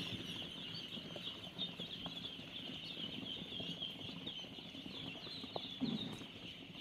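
A large flock of ducklings peeping together in a dense, high-pitched, continuous chorus.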